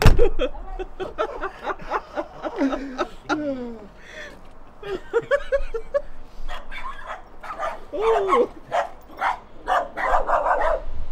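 A dog barking and yipping repeatedly, in short calls that come thicker in the second half.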